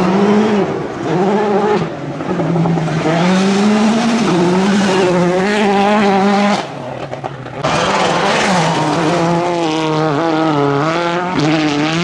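Rally cars driven hard on a gravel stage. The engine note repeatedly climbs and drops with gear changes and lifts, over the hiss of gravel and loose stones thrown up by the tyres. It is quieter for about a second just past the middle, then a car is heard flat out again.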